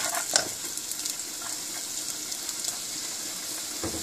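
Chopped onion sizzling in hot oil in a small pan, as it starts to fry. A few sharp clicks of the spatula against the pan in the first half-second and a soft knock near the end.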